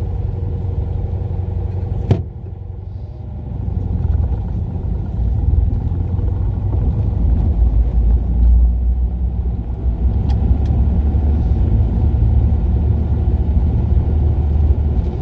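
Nash Metropolitan's small four-cylinder engine and road noise heard from inside the cabin while driving, a steady low rumble. A sharp click comes about two seconds in, after which the sound drops off for a moment and then builds back up.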